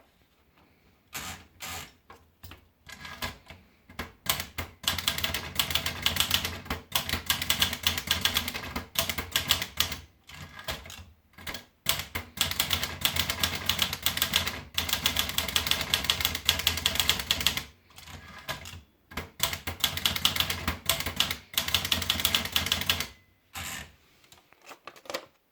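Olivetti Dora portable manual typewriter being typed on: rapid runs of key strikes with short pauses between them, and a brief ringing tone near the end.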